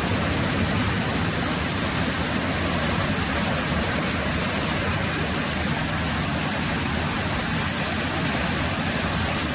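Muddy floodwater pouring and churning down a walled ramp into an underground entrance, a steady, loud rush of water with no breaks.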